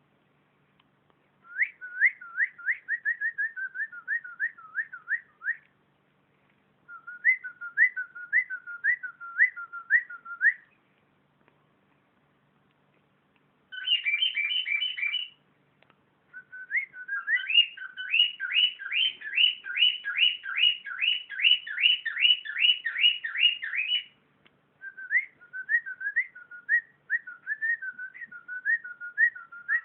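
Cockatiel whistling: phrases of quick, repeated up-sweeping whistle notes, about three a second, broken by short pauses of a second or two.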